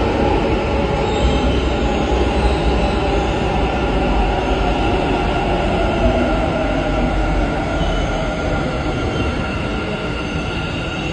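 Metro train running on the rails: a steady, loud rumble with high whining tones held over it.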